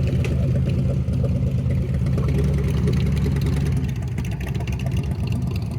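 Steady low hum of a vehicle's engine running, with no clear rise or fall in pitch.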